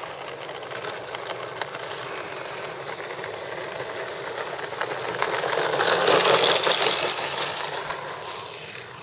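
Electric motor and propeller of a Parkzone Corsair radio-controlled model plane running as it rolls across a dirt field on its takeoff run. The sound swells to its loudest about six seconds in, then fades.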